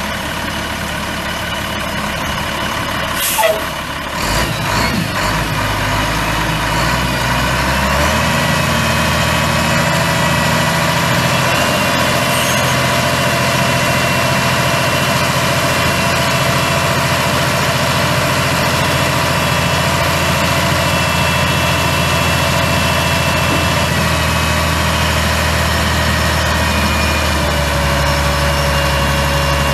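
Cummins 8.3-litre inline-six turbo diesel of a 1997 Ford LT8000 dump truck running steadily, with a sharp sudden noise about three and a half seconds in. About eight seconds in the engine speed steps up and holds steady at the higher speed, easing back a little near the end.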